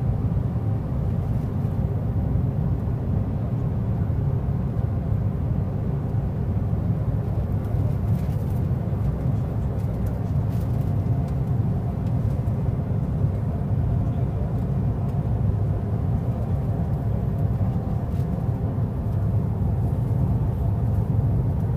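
Steady low rumble of cabin noise inside an Air Dolomiti Embraer 195 jet airliner climbing out after takeoff: the engines at climb power and the rush of air past the fuselage, even throughout.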